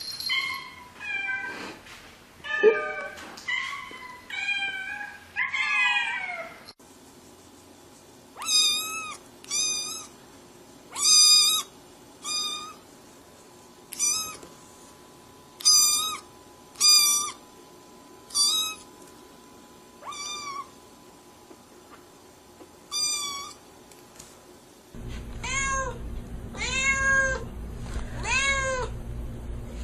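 Kittens meowing in a series of short clips. First there are a few varied meows. Then comes a string of loud, high-pitched meows one to two seconds apart. Near the end, quicker repeated meows sound over a low hum.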